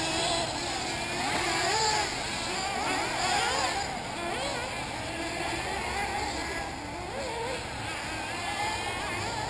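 Several 1/8-scale nitro RC buggies racing together, their small glow engines making an overlapping whine that keeps rising and falling as they rev and back off.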